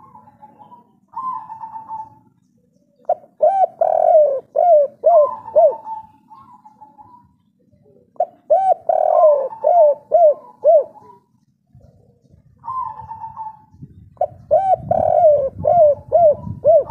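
Spotted dove cooing its 'kuk 3' song three times. Each phrase opens with a few higher coos and ends in a quick run of short, lower, arching coos.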